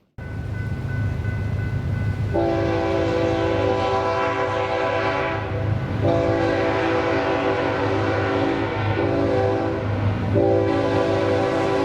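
Diesel freight locomotive's multi-chime air horn sounding the grade-crossing signal over the locomotive's engine rumble: two long blasts, a short one, then a long one.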